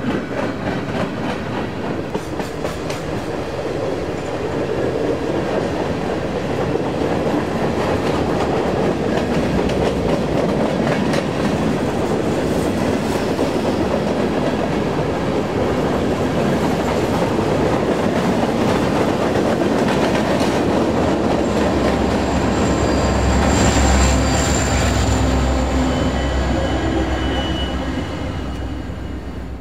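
Norfolk Southern manifest freight train rolling past: a steady rumble of wheels on rail with many clicks and clatter from the cars. About 22 seconds in, a diesel locomotive at the rear of the train passes with a deep engine rumble and a thin high whine, then the sound fades away near the end.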